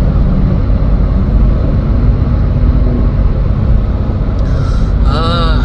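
Steady low road and engine rumble of a car driving at highway speed. Near the end a brief pitched sound wavers up and down over it.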